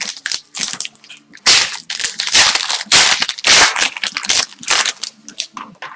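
Hockey card pack wrapper being torn open and crinkled, in a run of loud rustling, crackling bursts.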